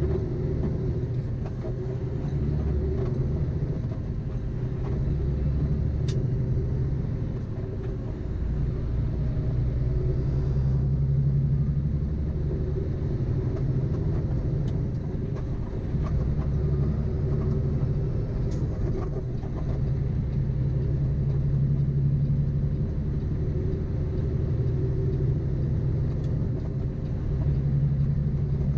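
Peterbilt semi truck's diesel engine running under load while driving, with its low drone stepping up and down several times.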